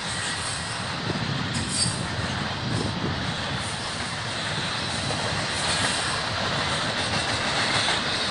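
Intermodal freight train cars carrying highway trailers rolling past at steady speed: a continuous rumble and hiss of steel wheels on the rails.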